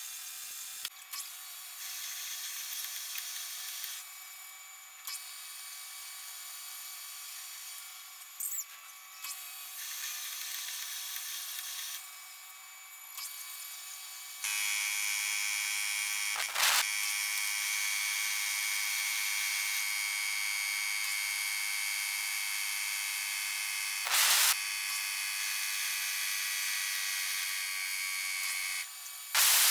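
Metal lathe cutting inside the bore of a spinning piston blank with a boring bar, a steady high hiss and whine of the cut. About halfway through it gets louder with a steady high-pitched whine, and three sharp clicks come in the second half.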